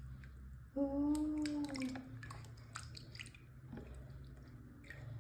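Small splashes, drips and clicks of soapy water as a toy cat is washed by hand. About a second in, a held hum lasts just over a second.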